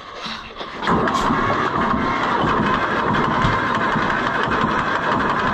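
Farm tractor engine cold-started: a brief crank, then it catches about a second in and settles into a steady run.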